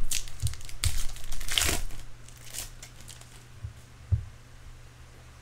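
Crinkling and tearing of a trading-card pack wrapper being opened and handled, with a soft knock a little after four seconds.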